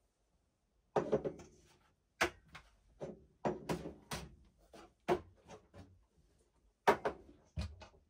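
Dishes and cupboards being handled in a small kitchen: an overhead cupboard door opening and closing, and crockery set down on the countertop, making a string of sharp knocks and clinks. The loudest knock comes near the end.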